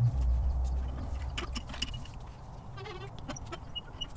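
Hydraulic floor jack carrying a skid plate, rolled across a concrete floor: a low rumble from its casters in the first second, then light knocks and clinks of metal and a brief squeak about three seconds in.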